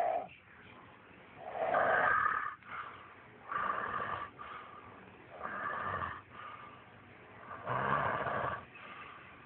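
A man snoring in a deep, drunken sleep: four snores, about two seconds apart.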